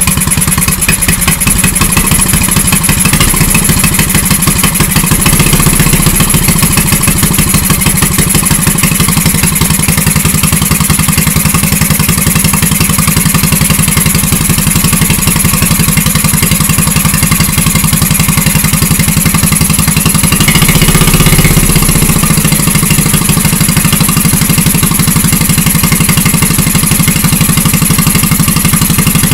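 A 5.5 hp single-cylinder four-stroke petrol engine of the Honda GX160 type, turbocharged and on electronic fuel injection, running steadily on a test stand. The pipe from the turbo to the intake is not yet connected. It gets briefly louder about twenty seconds in.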